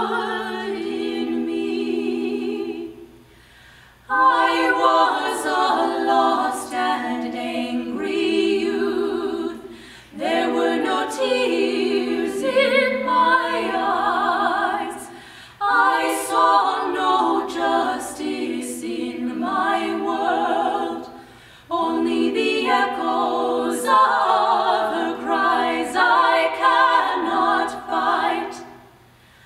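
Three women's voices singing a cappella in harmony, in phrases of about five to six seconds with a short breath between them.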